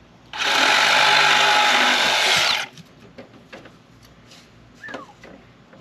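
Cordless drill running in one burst of about two seconds while working on a bamboo pole, followed by a few light knocks and clacks.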